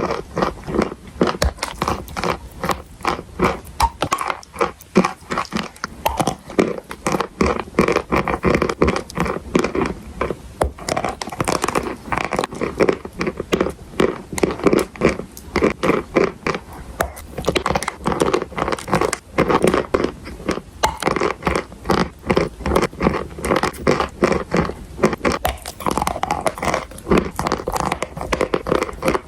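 A person biting and chewing chalk and clay close to the microphone: a dense run of crisp crunches and crackles, many a second.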